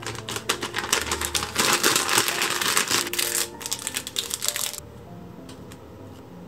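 Thin plastic food packet crinkling as it is handled and opened. The crinkling stops about five seconds in, leaving only the background music.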